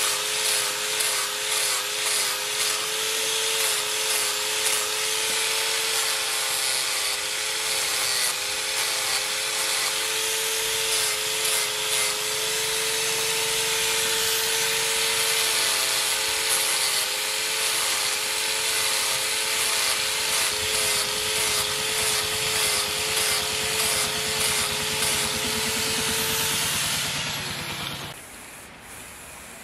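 Electric angle grinder with a pad disc running against a steel machete blade. It holds a steady whine that dips and wavers as the pad is pressed to the blade, and winds down and stops near the end.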